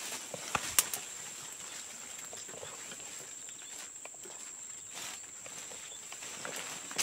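Footsteps and the rustle of dry stems and leaves as people push through dense undergrowth, with two sharp cracks a little under a second in. A steady high-pitched whine runs underneath.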